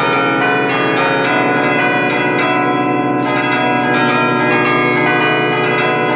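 Church bells played by hand from a baton keyboard: a quick, continuous melody of several bells, struck one after another several times a second, their tones ringing into each other.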